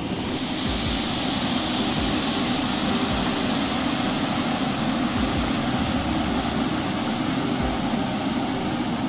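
Water of a rocky waterfall rushing and cascading over stone ledges: a steady, even rush that grows slightly louder a moment in, with occasional low thumps underneath.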